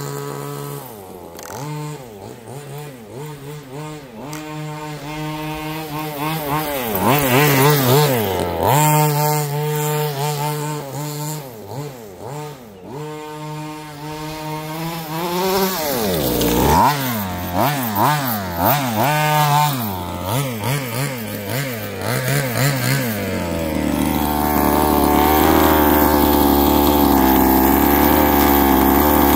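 Small two-stroke petrol engine of a 1/5-scale RC buggy, revving up and down repeatedly as the buggy is driven. For the last few seconds it runs louder at a steady speed.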